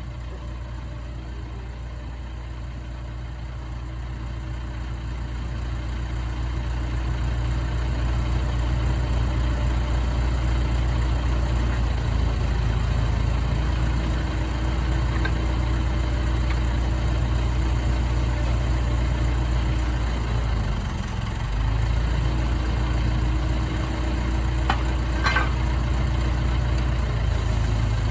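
A diesel engine on the drill rig running steadily at idle, growing louder over the first several seconds.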